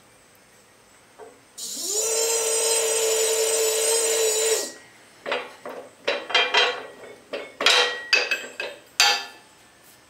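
Hydraulic pipe bender with half-inch black pipe in its die: a loud metal squeal rises briefly, then holds steady for about three seconds as the jack's ram is let down off the bent pipe. A quick run of sharp metal clanks and knocks follows as the pins, die and bent pipe are handled and pulled out.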